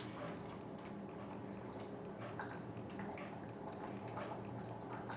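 Metal ladle scooping soup from a saucepan and pouring it into a bowl: faint scattered clinks and liquid sounds over a low steady hum.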